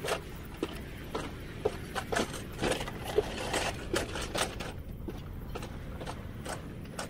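Fisser Flitzer alpine coaster sled running along its steel rail: a low steady rumble with irregular clicks and knocks about once or twice a second.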